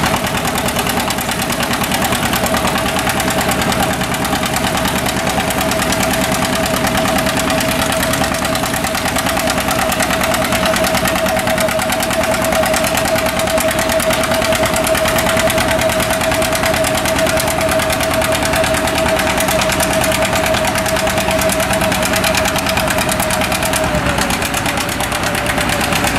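Antique John Deere two-cylinder tractor engine running under load as it drags a weight-transfer sled. A steady whine runs over the engine and drops slightly in pitch near the end.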